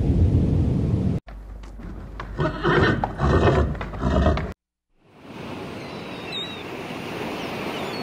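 A deep rumble breaks off, and a horse whinnies for about three seconds. After a brief silence, the steady wash of sea waves comes in, with a short gull call.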